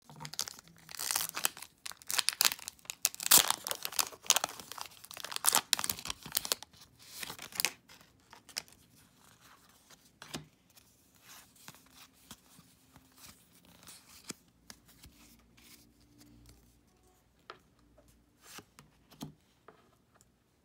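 Loud crinkling and rustling, dense for about the first eight seconds, then fainter rustles and a few sharp clicks.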